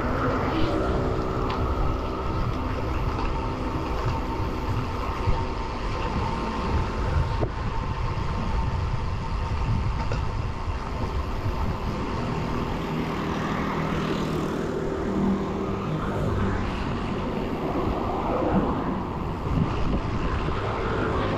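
Wind rushing over the microphone of a road bike descending at speed, with road traffic around it. Motor-vehicle engines are heard over the wind for a few seconds near the start and again about halfway through.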